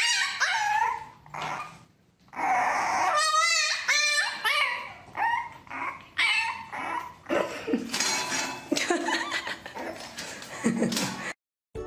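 French bulldog puppy yipping and whining in a string of short, high, wavering calls, with a brief pause about two seconds in. The calls cut off just before the end.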